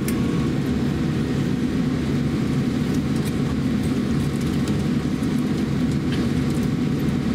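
Steady low cabin rumble inside a Boeing 787-8 airliner standing still on the ground after landing, with a faint steady tone over it.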